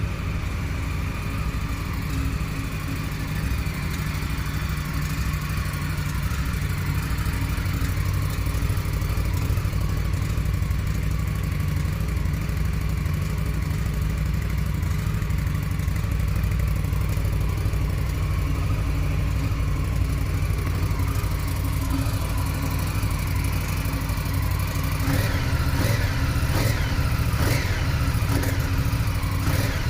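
Indian Scout Bobber's V-twin running through its stock Euro5 exhaust, idling steadily. It is blipped up and down a few times near the end.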